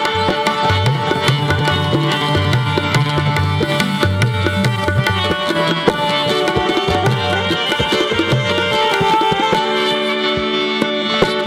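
Live band playing an instrumental break in an Afghan song: a saxophone melody over tabla, guitar and a rhythmic bass line. Near the end the bass drops out under a held chord that leads back into the song.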